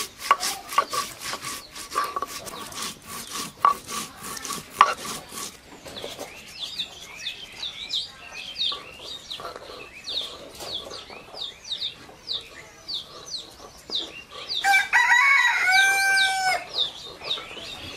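Cumin seeds being ground with a stone roller on a flat grinding stone (shil-pata), a fast rasping back-and-forth stroke for about five seconds. Small birds then chirp repeatedly, and near the end a rooster crows once, loudly, for about two seconds.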